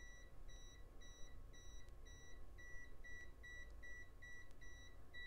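Kaiweets HT118A multimeter's non-contact voltage beeper giving rapid short beeps, about three a second, as it senses the AC to a light close by, its high (H) indication.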